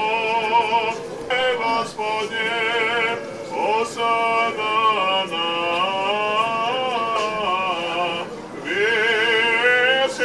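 Orthodox liturgical chant: one melodic sung line in long held, wavering notes, with a few short breaks between phrases.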